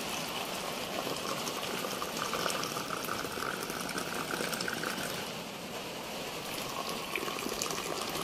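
Tea poured from a teapot held high into small glasses, the stream splashing and foaming in each glass. The pour is loudest for a few seconds around the middle and again near the end.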